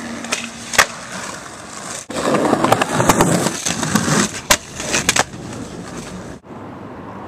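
A skateboard rolling on rough pavement, its wheels making a rough, grinding noise, with several sharp clacks as the board hits the ground.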